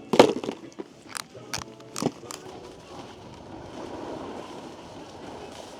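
Snow crunching under a snowboard: a handful of sharp crunches and knocks in the first two seconds or so, the first the loudest, then a steady hiss of the board sliding over snow.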